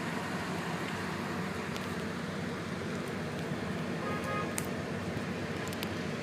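Slow, congested city traffic: a steady low engine rumble of idling and crawling vehicles, with a few brief high tones about four seconds in.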